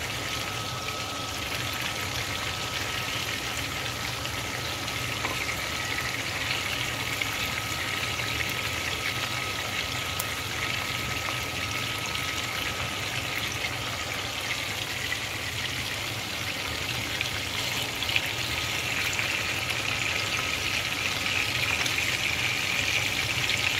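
Whole sardines frying in hot oil in a pan: a steady sizzle with the oil spitting and crackling, growing a little louder near the end. The oil is spattering because the heat is high.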